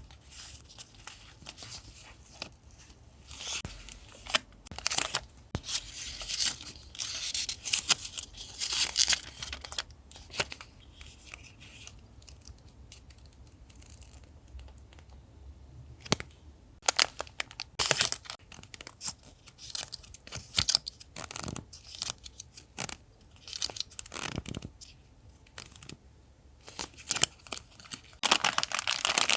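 Paper and packaging handled close up: on-and-off tearing and rustling with small sharp clicks, growing into louder, steadier crinkling near the end.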